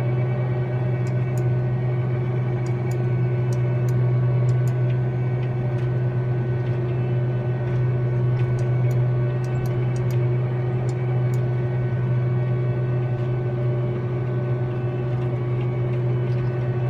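Hagie STS12 self-propelled sprayer running steadily while spraying, heard from inside the cab: an even, low drone with steady higher tones over it, and faint light ticks now and then.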